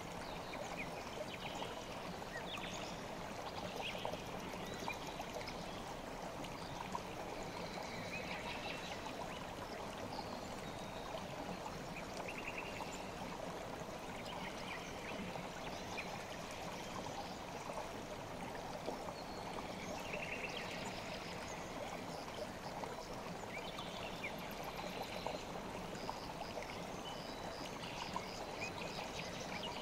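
River water flowing steadily, a continuous even rush with no break.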